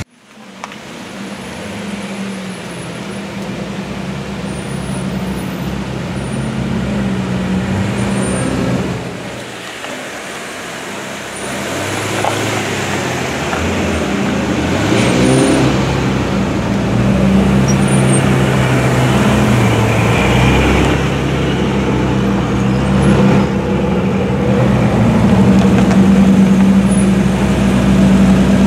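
A queue of Ferraris idling and rolling slowly past at low revs: a steady low engine note with a few short rising revs. It grows louder near the end as the black Ferrari 456's V12 pulls up close.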